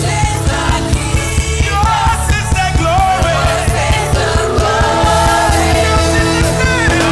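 Gospel worship song played by a band with a steady drum beat under a sung melody.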